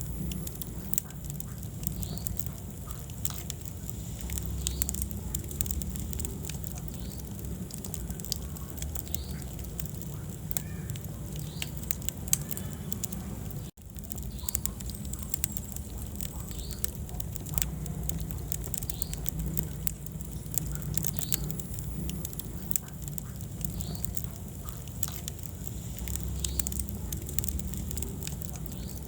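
Wood fire burning in a fireplace: frequent sharp crackles and pops over a steady low rumble of the flames. There is a brief dip to near silence a little under halfway through.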